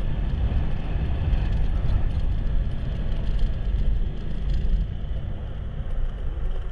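Motorcycle on the move: a steady low rumble of engine and road noise, with wind buffeting the microphone.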